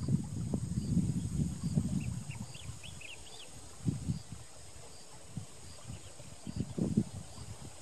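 Rural outdoor ambience: a steady high insect drone, with a run of short rising bird chirps about two to three seconds in. Under it is low, irregular rumbling, strongest at the start and again near the end.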